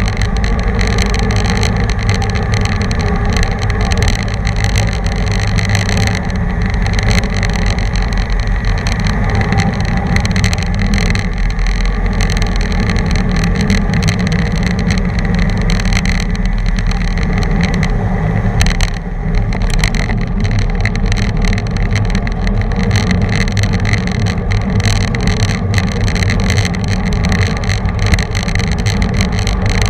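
Steady, loud wind rush on the microphone of a camera riding on a road bicycle at race speed in a pack, heaviest at the bottom.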